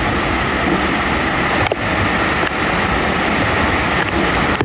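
Hurricane wind and rain blowing hard, a steady, loud rush of noise.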